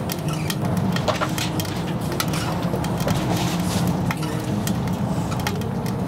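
Firewood crackling and popping in a small steel camping wood stove: irregular sharp pops over a steady low rumble.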